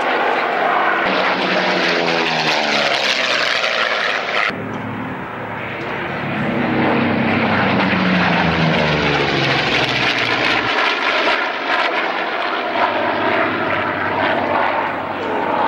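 Two piston-engined propeller fighters flying past in close formation, their engines loud and running hard. The engine note drops in pitch as they go by, twice.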